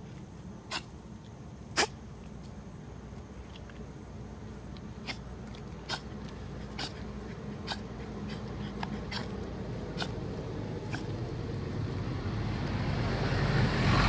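A French bulldog's short snorts and sniffs at irregular intervals, roughly one a second, the loudest about two seconds in. Near the end a car approaches and grows louder.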